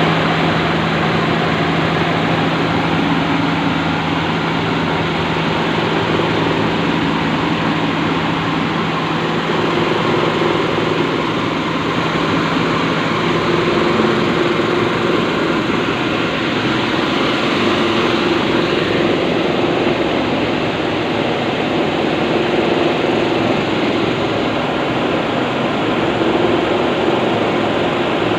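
N50 and N70 rice polisher machines running steadily while milling rice: a loud, even machine noise, with a low hum that drops out about halfway through.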